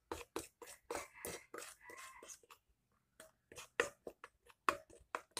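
A spoon stirring and mashing a wet coffee-and-tomato scrub in a stainless steel bowl: a quick, irregular run of soft clicks and scrapes as the spoon meets the bowl, with a short pause a little before the middle.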